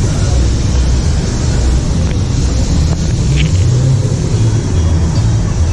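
Wind buffeting the camera microphone outdoors: a loud, uneven low rumble.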